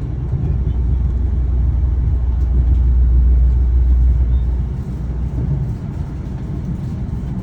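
Moving train, a steady deep running noise that swells for a few seconds and eases about five seconds in.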